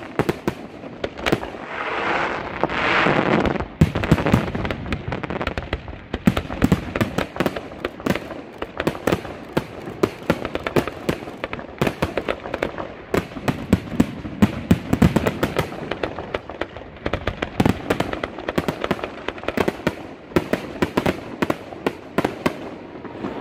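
Aerial fireworks display: a dense, continuous run of shell bursts, bangs and crackles, with a louder hissing crackle about two to three seconds in.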